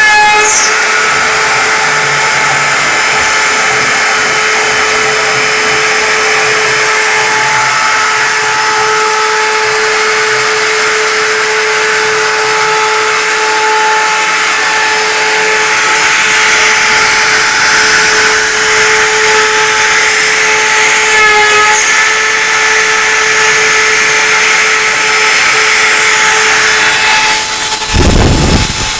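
CNC router spindle running at a steady pitch while the bit carves, with the hiss of the cutting over the whine. A short low thump comes near the end.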